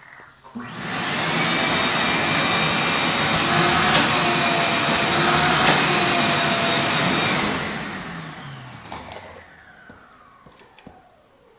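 Vacuum cleaner switched on about half a second in, running steadily for about seven seconds, then switched off and winding down with a falling whine.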